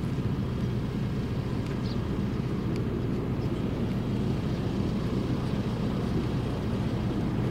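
Steady low engine drone, unchanging in pitch and loudness.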